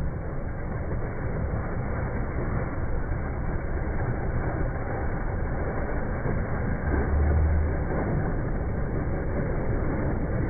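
Ocean surf breaking and rushing in, heard from in the shallows at water level: a steady low rush of breaking waves and churning foam that grows a little louder as a wave washes over.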